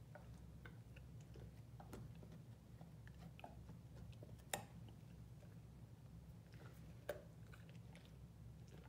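Great Dane puppy nibbling a raw carrot: faint scattered crunches and small clicks of teeth on carrot, with two sharper snaps, one about halfway through and one later on, over a low steady hum.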